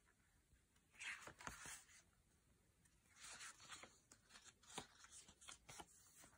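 Faint rustling and small crackles of thick sketchbook pages being turned and handled, in a few short bursts: one about a second in, one about three seconds in, then scattered light clicks as the next page is lifted.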